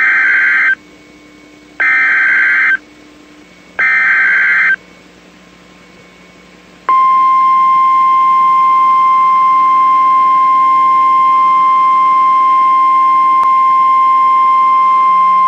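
NOAA Weather Radio alert for a National Weather Service tornado warning. It opens with three short screeching bursts of the digital alert header, about two seconds apart. A few seconds later comes a single steady high warning tone of about 1 kHz, held for about eight and a half seconds, which signals that a warning message follows.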